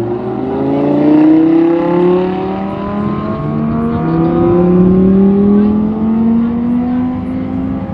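Supercar V10 engines from a Lamborghini Huracán and an Audi R8 accelerating hard under a long pull, their pitch climbing slowly and steadily.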